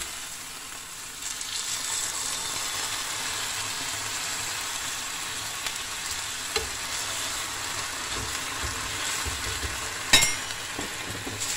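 Beef steaks sizzling steadily as they fry in a hot pan in the oil already on the meat, with a spatula moving them about. A sharp knock comes near the end.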